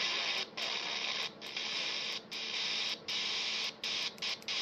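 Quansheng UV-K5 handheld radio's speaker hissing with static, its squelch open on an empty frequency. The hiss cuts out for a split second about seven times.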